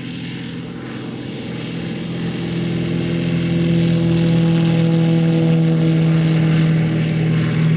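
Piper Pawnee light aircraft's piston engine and propeller at full power on a grass take-off run. It grows steadily louder from about two seconds in as the plane passes close by, and eases slightly near the end.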